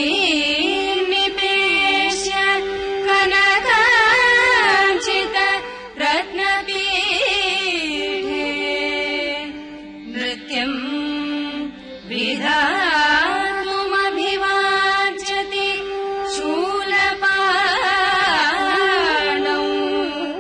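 Carnatic classical vocal singing: a Sanskrit verse drawn out in long, heavily ornamented phrases with sliding pitch over a steady drone. The singing dips briefly about halfway through, then resumes.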